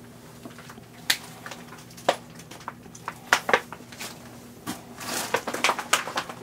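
Footsteps crunching and clattering over junk strewn on a floor: irregular sharp clicks and crunches, coming thicker near the end, over a steady low hum.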